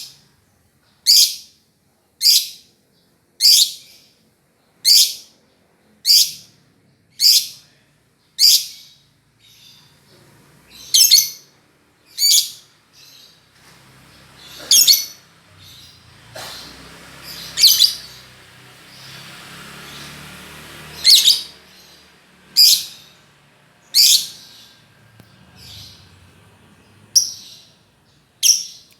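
Lovebird calling: short, high-pitched calls repeated about once every second and a bit, growing more irregular about a third of the way in, with softer noisy sound between the calls for several seconds in the middle.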